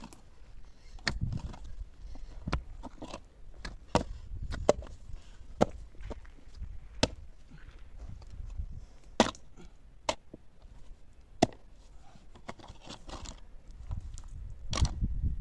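Hand digging in stony soil: a pick and a steel spade strike and scrape the earth and stones with irregular sharp knocks, a few much louder than the rest, as loosened soil is shovelled out.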